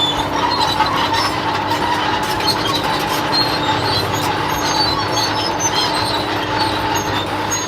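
Bulldozer sound effect: a loud, steady mechanical din with a held whine and many scattered metallic clicks, stopping abruptly.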